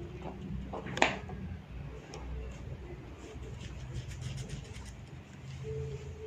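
A single sharp crack about a second in, from a hair-pulling and neck-cracking massage, followed by fainter small clicks and pops, over a steady low hum.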